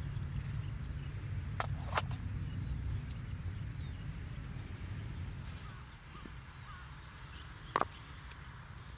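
Campfire burning with a steady low rumble and a few sharp crackling pops: two close together about two seconds in and one near the end.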